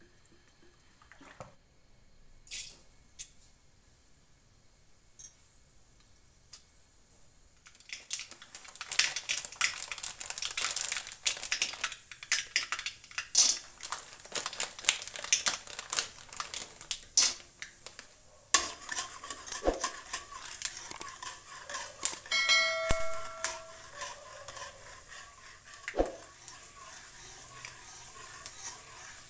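Mustard seeds and peanuts frying in hot oil in an aluminium kadai, crackling and popping densely from about eight seconds in, after a quieter start with only a few clicks. A metal spatula scrapes and clinks against the pan, with a brief ringing clang about three-quarters of the way through.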